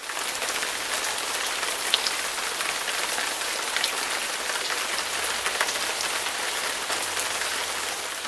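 Steady rain-like hiss with a few faint ticks.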